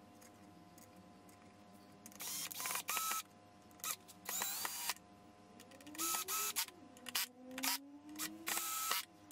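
Cordless drill-driver driving screws through a passive radiator's flange into a 3D-printed subwoofer enclosure, in about five short runs. The motor whine rises at the start of each run.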